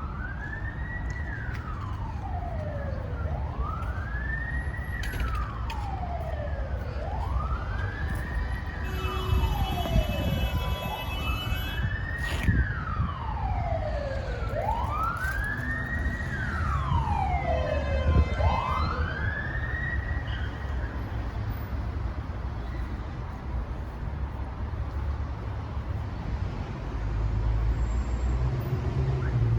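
Emergency-vehicle siren in a slow wail, rising and falling about once every four seconds for six cycles and then stopping, over a steady rumble of road traffic.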